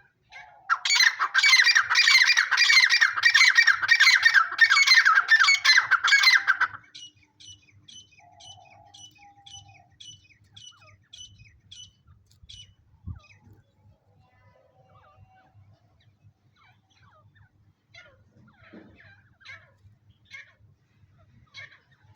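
Teetar (francolin) calling loudly in a fast repeated series for about six seconds, then softer short chirps about twice a second that thin out to scattered chirps.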